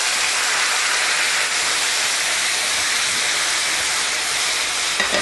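Coconut milk sizzling and hissing in a hot stainless steel skillet of seared chicken breasts and diced mango, the liquid boiling up in steam where it meets the hot pan. The hiss is steady throughout.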